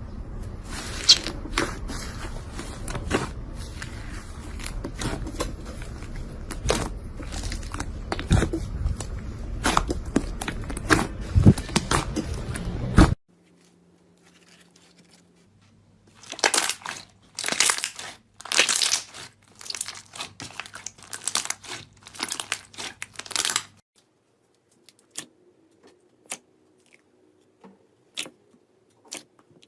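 Slime being squeezed and stretched by hand, making dense crackling and crinkling pops. It comes in three separate takes: continuous crackling at first, a burst of loud crackles midway, then a few sparse clicks near the end.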